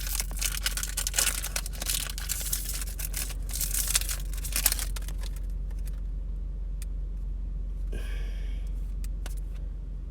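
Foil trading-card pack being torn open and crinkled for about five seconds, then a few light clicks and a short rustle as the cards are handled. A steady low hum of the parked car runs underneath.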